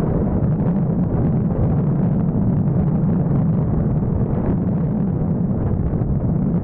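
Classic Vespa scooter's two-stroke single-cylinder engine running steadily under way, being run in on a new IDP cylinder.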